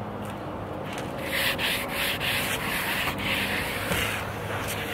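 A Chemical Guys tire applicator pad scrubbing tire sealant into a rubber tire sidewall, in a quick series of rough back-and-forth rubbing strokes.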